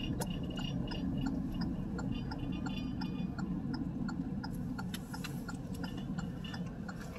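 Inside a slowly moving car: a steady low rumble of engine and road, with an even ticking about three times a second from the turn-signal indicator.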